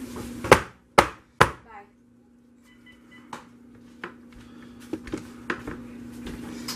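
Three sharp knocks about half a second apart, then fainter scattered clicks and taps over a steady low hum.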